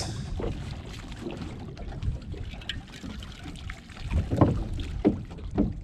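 Wind on the microphone and water sloshing around a small open boat at sea, a steady low rumble. Three short louder sounds come between about four and five and a half seconds in.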